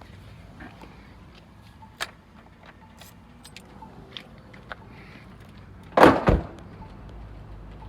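A truck door is shut with a loud slam about six seconds in, after a few small clicks and rattles of someone getting out of the vehicle.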